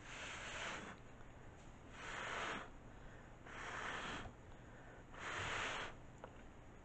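Four short puffs of blown air across wet acrylic paint on a canvas, each under a second and about a second and a half apart, pushing the poured paint outward from the middle.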